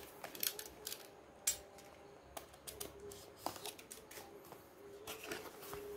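Cardboard product box being handled and opened by hand: scattered light clicks, taps and scrapes of the card, with one sharper tap about one and a half seconds in.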